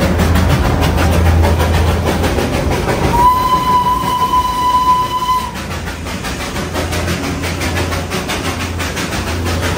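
Darjeeling Himalayan Railway toy train's steam locomotive whistle, blown once for a little over two seconds at one steady pitch, about three seconds in. Under it runs the rumble and clatter of the moving narrow-gauge train.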